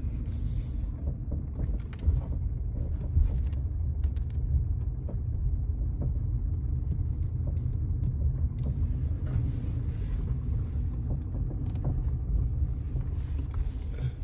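2012 Kia Forte driving slowly, heard from inside: a steady low rumble of road and engine, with scattered light clunks and clicks, the sharpest about two and three seconds in. This is the light clunking the owner hears at 5–15 mph, source not yet found.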